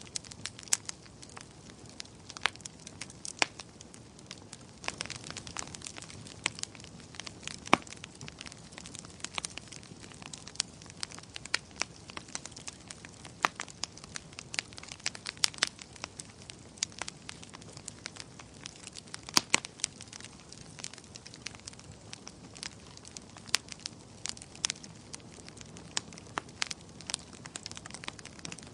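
Bonfire burning: a soft steady hiss of flames with frequent irregular crackles and sharp pops from the burning wood, a few of them much louder than the rest.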